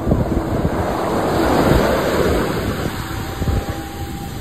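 Ocean surf washing in, with a wave surging loudest about two seconds in, and wind rumbling on the microphone.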